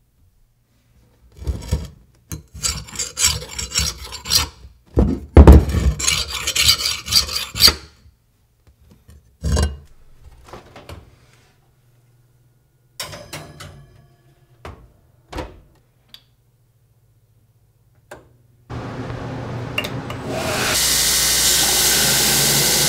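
A 60 HRC hardness-test file scraped in strokes across a hardened Damascus steel knife blade, a check that the blade has hardened. A few scattered knocks follow, then a belt grinder starts up near the end and runs steadily as the blade is ground.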